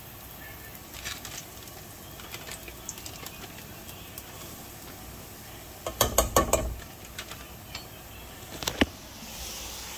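A quick cluster of clicks and knocks with a dull thump about six seconds in, then a single click near the end, over a faint steady background.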